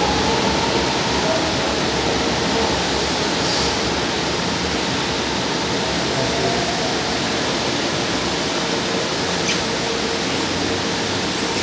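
Metro trains running through a station: a steady rush of wheel and running noise with a faint electric motor whine that glides in pitch, as one train pulls out and another comes in and runs past.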